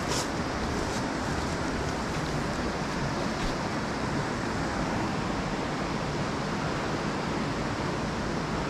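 Steady rushing of the Youghiogheny River's Dartmouth Rapids, an even whitewater noise that holds at one level throughout.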